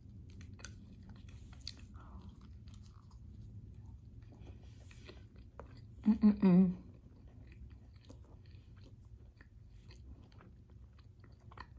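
Close mouth sounds of chewing a chicken wrap: faint wet clicks and crunches. About six seconds in, a brief voiced sound from the eater, three quick pulses, which is the loudest thing here.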